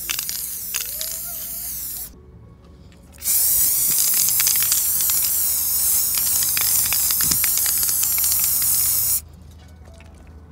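Aerosol spray-paint can spraying in two bursts: a short hiss that stops about two seconds in, then after a brief pause a long steady hiss of about six seconds that cuts off near the end.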